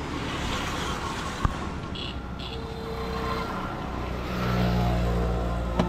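A motor vehicle's engine running close by, swelling louder over a second or so near the end, with a single sharp knock about a second and a half in.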